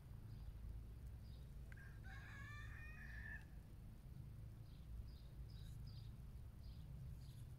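A rooster crowing once, faintly, starting about two seconds in and lasting about a second and a half, over a steady low rumble.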